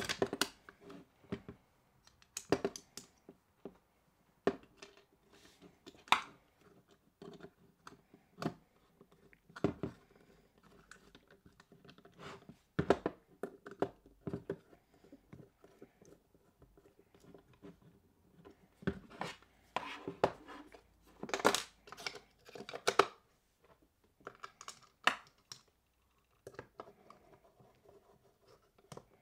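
Irregular clicks, taps and light scraping of pistol grip panels and grip screws being handled and fitted to a Sig Sauer P229 frame, with a faint steady hum underneath.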